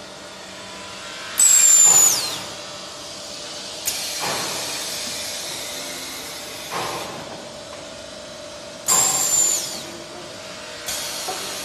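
Pneumatic system of a plastic pipe belling machine cycling. Twice, about seven seconds apart, comes a loud sharp hiss of released air with a high whistle sliding down, and fainter air releases come between them. A steady machine hum runs underneath.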